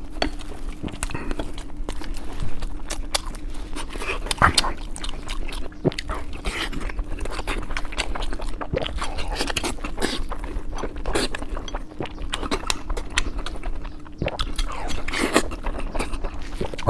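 Close-miked chewing and crunching of a chicken drumstick wrap with fried corn kernels: many small crisp crunches and mouth clicks throughout, over a faint steady hum.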